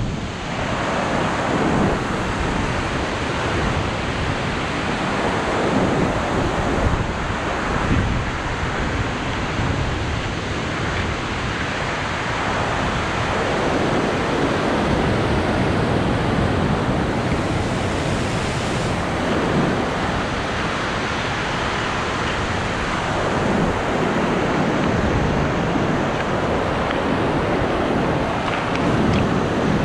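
River rapids rushing over rock in a steady, loud whitewater roar, with gusts of wind buffeting the microphone.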